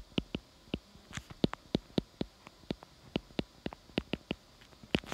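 Stylus tip clicking and tapping on a tablet screen while handwriting: a run of sharp, irregular clicks, several a second.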